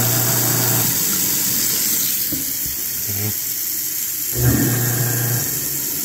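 Garbage disposal motor humming, running again after its reset button was pressed, while tap water runs into a stainless steel sink. The hum stops about a second in and comes back briefly later on; the water keeps running throughout.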